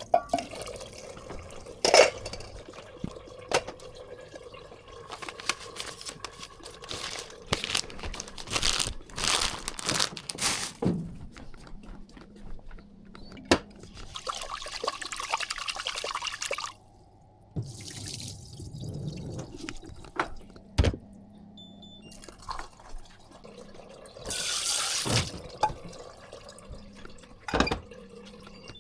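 Water running and splashing in a kitchen sink in short spells, with scattered knocks and clatter of things being handled.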